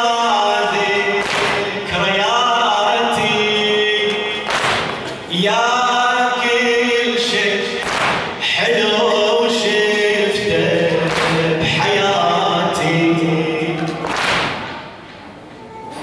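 Unaccompanied Shia latmiya lament chanted by a male reciter over a microphone, with a chorus of voices. Sharp strikes recur about every one and a half seconds, in the rhythm of congregational chest-beating (latm). The chanting drops away briefly near the end.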